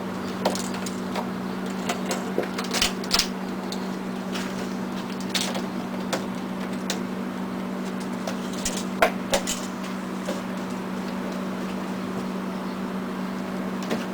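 A steady low hum, with scattered light knocks and clatters of things being handled; the sharpest come about three seconds in and again about nine seconds in.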